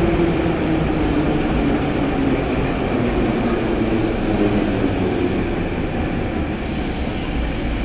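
Metro train arriving at a station platform and slowing to a stop: wheel and running noise with a low hum that fades out about halfway through, the whole sound slowly easing off.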